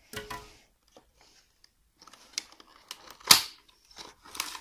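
Knife cutting the seal on a small paperboard earphone box and the box being pulled open: scattered scraping and paper rustling, with one loud sharp tearing sound about three seconds in.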